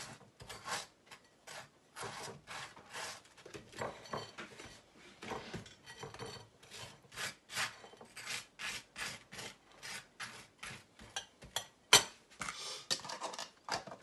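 A knife spreading butter on dry toast: repeated rasping scrapes, about two or three strokes a second, uneven in strength. About twelve seconds in there is a sharper knock, louder than the scrapes.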